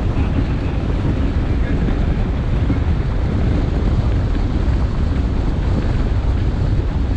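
Bass boat running at speed across a lake: steady rush of wind on the microphone over the water rushing past the hull, with no let-up.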